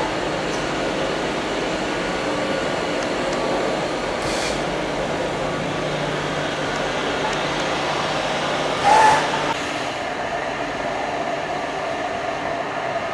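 Egg tray making machinery running with a steady mechanical noise and hum, broken by a short hiss about four seconds in and a louder one about nine seconds in.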